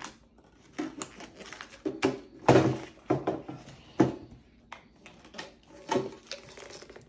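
Plastic wrapping being torn and crinkled off a cardboard Pokémon card box by hand, in a string of short irregular rustles, tears and taps, loudest about two and a half seconds in.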